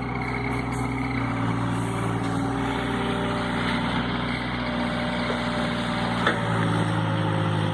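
Takeuchi TB135 mini excavator's diesel engine running under load, its note shifting and rising about six and a half seconds in, with a few faint knocks.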